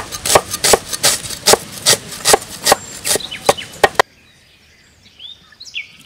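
Knife chopping onions on a wooden board, about four quick strokes a second, stopping abruptly about four seconds in. A few faint bird chirps follow near the end.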